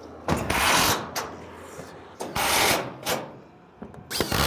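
Rough rasping scrapes in several separate strokes: a longer one about half a second in, another a little after two seconds, and a few short ones near the end.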